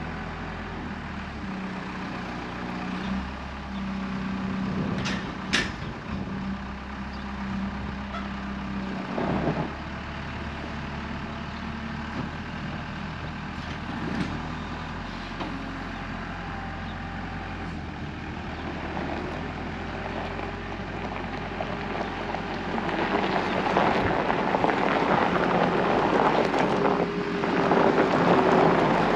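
Farm tractor engine running steadily, with a couple of sharp clicks about five seconds in and louder, rougher mechanical noise over the last several seconds.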